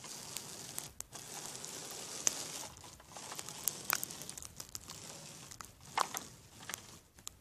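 Plastic toy figures being handled and moved about: a soft, uneven rustling broken by scattered small clicks and taps, with brief pauses.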